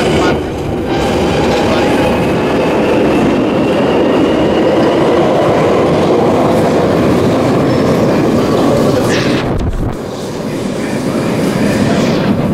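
London Underground Northern line train pulling out of the platform: a loud, steady rumble of wheels on the rails, with a faint rising whine in the first few seconds and a brief drop in the noise near the end.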